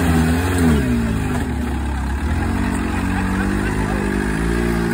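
Volkswagen TDI diesel engine in a Willys Jeep, revving under load as the Jeep crawls over rock ledges. The engine speed rises and falls in the first second or so, then holds steadier and climbs slowly.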